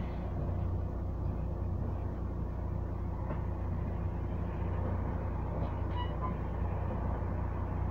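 Double-decker bus engine idling with a steady low rumble while the bus stands still, heard from inside on the upper deck.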